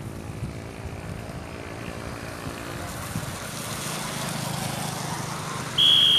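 Motorcycle engine approaching on a wet road, growing louder through the second half. Near the end comes a short, loud, high-pitched steady tone lasting about half a second.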